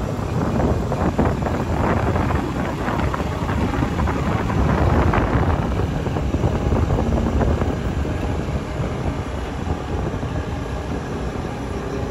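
Wind rushing over the microphone and rumbling road noise from a vehicle moving along the road, rougher and louder in the first half.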